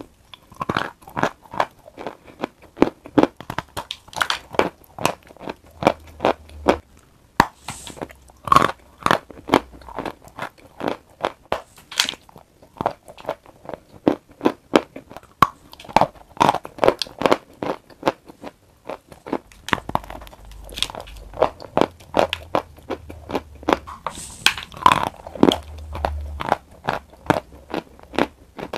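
A bar of chalk being bitten and chewed close to the microphone: a dense run of sharp crunches, with short pauses between bites.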